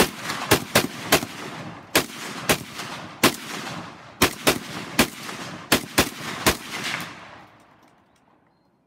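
AK-47 rifle fired in a rapid, irregular string of about fourteen shots, each followed by echo. The shooting stops about six and a half seconds in and the echo dies away.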